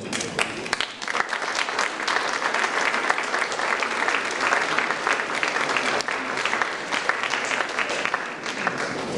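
Audience applauding: many people clapping, a dense patter of claps that dies down near the end.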